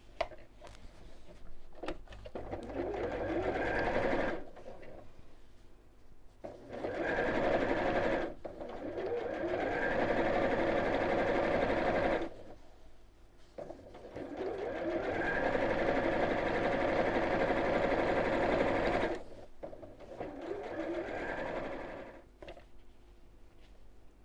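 Electric domestic sewing machine stitching binding through a quilted foam mat, running in about five runs of a few seconds each, speeding up as each run starts and stopping sharply between them.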